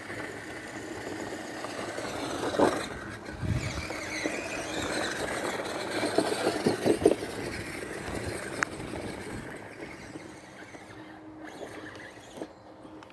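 Electric motors and gearbox of a modified FTX Outback radio-controlled crawler whining as it drives, with knocks of the chassis and tyres against the ground: one sharp knock a couple of seconds in and a cluster of knocks about halfway, then fading toward the end.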